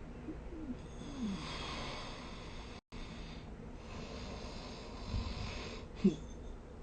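A sleeper snoring: two long, noisy, hissing breaths with a brief dropout between them, and low snorting grunts in the first second and a half. A short sharp snort about six seconds in is the loudest sound.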